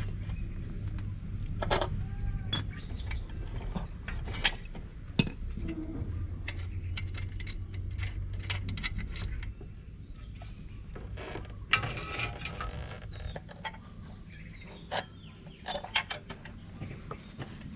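Scattered metal clicks and clinks of hand tools on a motorcycle's rear axle and chain adjuster, with a few animal calls and a steady low hum in the background.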